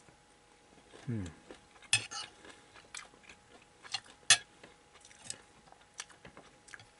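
Metal spoon and chopsticks clinking against a plate while scooping crumbled ground meat: a handful of separate sharp clinks, the loudest a little past halfway.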